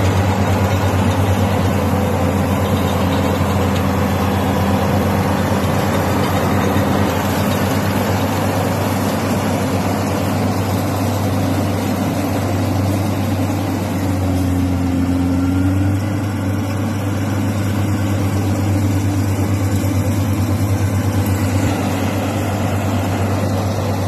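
Engine of a small rice combine harvester running steadily and loudly as it works through the paddy, with a deep hum and a brief change in pitch about fifteen seconds in.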